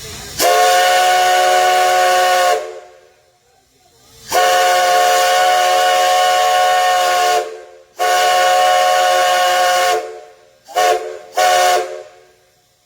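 Nickel Plate Road 587 steam locomotive whistle blowing a chord of several notes together: three long blasts of two to three seconds each, then two short toots near the end.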